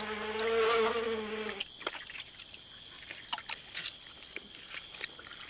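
A flying insect buzzing close by in a steady pitched drone that cuts off about a second and a half in. Only faint scattered clicks and a thin high hum follow.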